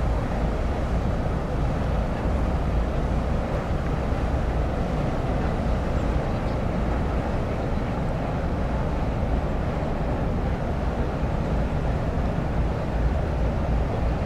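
High-speed ferry SUPERRUNNER JET II passing at close range: a steady low rumble of its engines, with no breaks.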